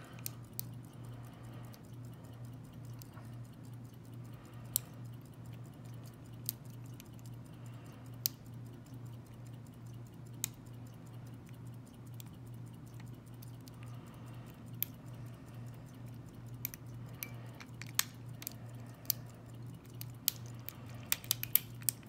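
Sparse small metallic clicks and ticks of a lock pick working the pin tumblers of a Master Lock lockout padlock under a tension wrench, a few seconds apart at first and coming more often near the end. A steady low hum runs underneath.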